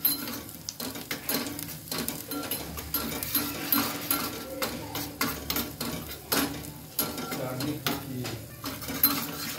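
A spoon stirring and scraping in a small pan, with irregular clinks, over a faint sizzle of ginger, jaggery and spices cooking in ghee.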